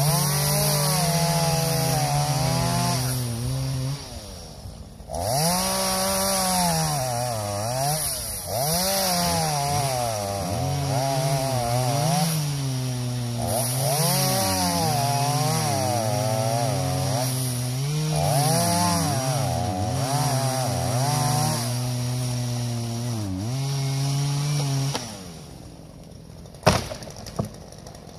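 Chainsaw cutting into a dead tree, the engine running under load with its pitch repeatedly dipping and rising, and a short drop about four seconds in. Near the end the saw stops, and a sharp crash follows a second or two later as the felled tree hits the ground.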